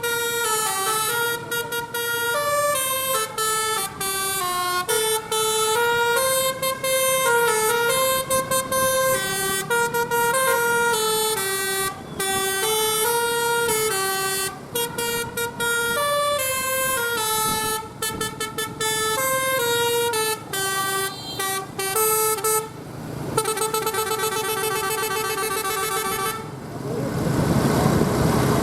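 A bus's multi-trumpet musical 'telolet Basuri' air horn playing a tune of short stepped notes with breaks between phrases. About 23 seconds in it changes to a buzzier held tone. Near the end a loud vehicle engine noise takes over.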